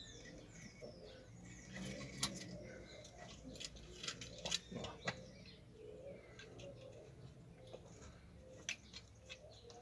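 Faint scattered clicks and rustles of string being pulled through holes in a piece of wood as an orchid is tied onto it, with a bird calling faintly in the background.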